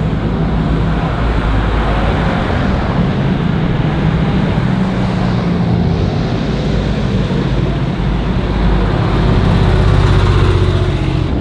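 Car engines running in street traffic, a steady low drone that swells louder near the end as a car passes close.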